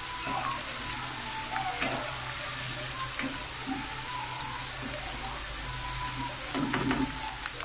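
Sliced onions sizzling steadily as they fry in oil in a non-stick pan, still pale at an early stage of browning, with a spatula stirring through them. There is a louder stir near the end.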